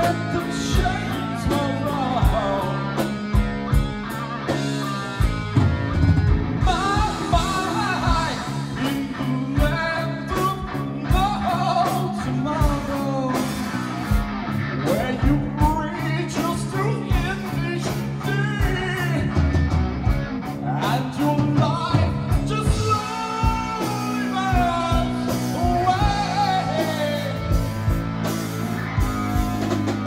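Live hard rock band playing loud: distorted electric guitar lead with bending notes over bass guitar and drums, with a singer's voice at times.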